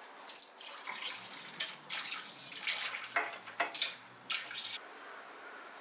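Water running from a tap and splashing unevenly, stopping suddenly near the end.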